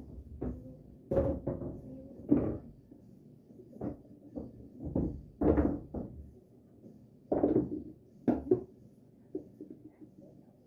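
Pool balls clacking together and knocking against the table's cushions, followed by scattered knocks and thumps. The loudest knocks come about two seconds in and again near the end.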